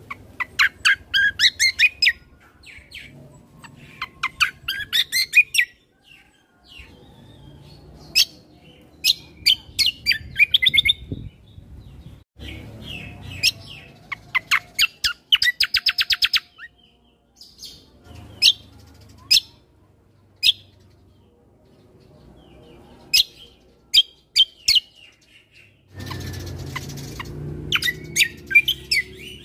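Kecial kombo (cucak kombo) songbird singing in bursts of rapid, sharp chirps and a fast even trill, broken by short pauses, over a low background hum.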